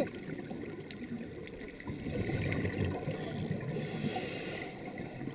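Underwater sound heard through a dive camera's housing: a scuba diver's exhaled bubbles rumbling and gurgling, louder from about two seconds in, followed by a short hiss about four seconds in that fits a breath drawn through the regulator.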